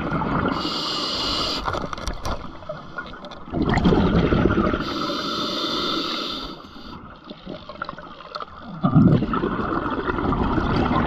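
Scuba diver breathing through a regulator underwater. Two breath cycles: a hissing inhale through the regulator, then a bubbling exhale of gurgling air.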